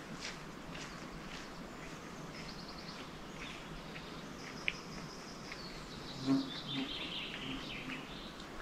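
A flying insect buzzing briefly close by, twice in the second half, over faint songbird song with high trills and a falling run of notes.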